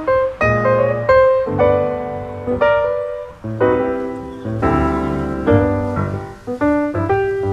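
Background piano music: chords played one after another, each note struck and left to fade.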